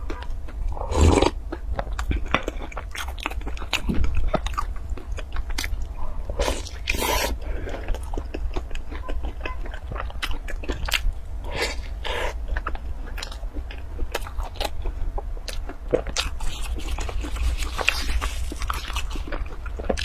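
Close-miked biting and chewing of a flaky pastry, with many short, crisp crunches and wet mouth sounds. A gulp of milk about a second in is the loudest sound.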